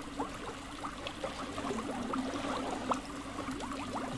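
Aquarium water bubbling: many small, quick bubble blips over a steady low hum.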